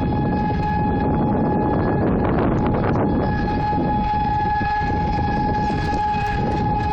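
Airport siren sounding one steady, unwavering tone, loud, over a low rumble of background noise.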